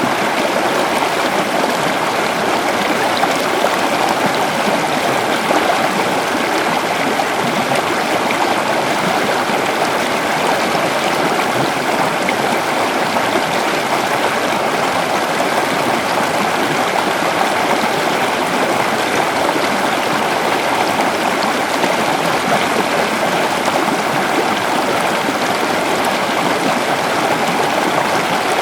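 Waterfall and its stream running steadily: a continuous, even rush of falling and flowing water.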